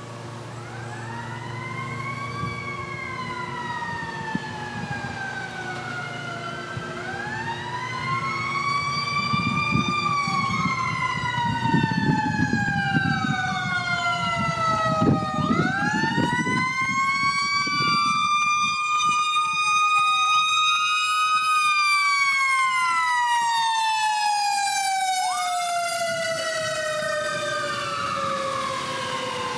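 Fire truck siren wailing in slow rising and falling sweeps, growing louder as it approaches, loudest in the middle with the truck's low engine rumble underneath, then fading as it moves away.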